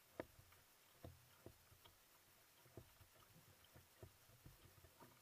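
Near silence on a kayak at rest on calm water: faint, irregular small knocks and water slaps against the hull, roughly one every half-second to second.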